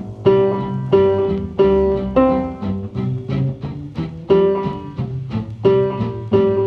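Background music with plucked notes at a steady pace, about three notes every two seconds.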